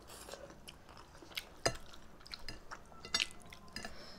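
Two people eating instant noodles with forks at close range: wet chewing and mouth noises, broken by scattered sharp clicks, the loudest just under halfway through and again about three seconds in.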